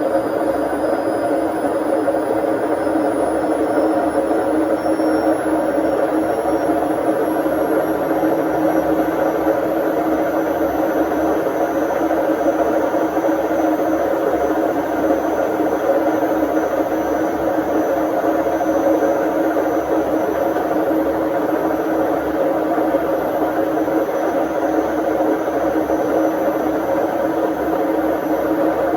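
Indesit IWD61450 washing machine running in its service-mode test cycle: a steady mechanical whir, with a faint high whine that rises over the first several seconds and then holds steady.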